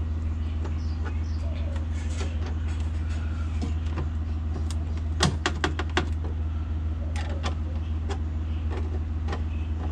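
Clicks and knocks from a repaired steel saddlebag mounting bracket being test-fitted onto a motorcycle, with a quick run of sharp clicks about five seconds in and a few single clicks later, over a steady low hum.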